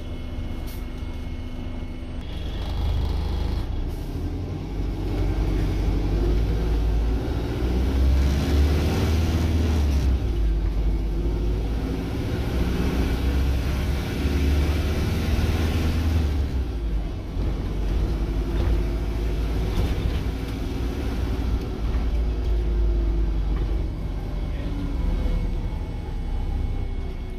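City bus driving, heard from inside the passenger saloon: a steady low engine rumble with whining tones that rise and fall as the bus changes speed. A hiss of road noise swells in the middle and drops away about two-thirds of the way through.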